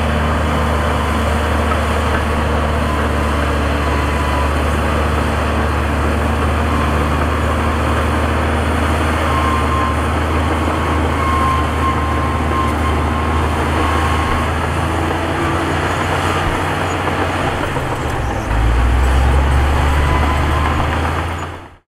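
Heavy diesel earthmoving machinery running with a steady deep engine rumble. Over the last few seconds the rumble drops deeper and gets louder, then fades out quickly at the very end.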